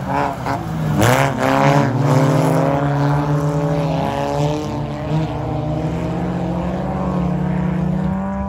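Several front-wheel-drive ice-racing cars on studded tyres, their engines revving hard together, pitch climbing and dropping as they accelerate, shift and corner. The loudest stretch is about a second in.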